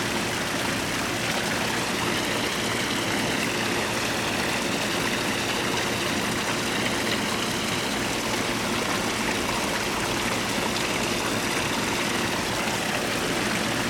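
Steady rush of running water at a koi pond, continuous and even.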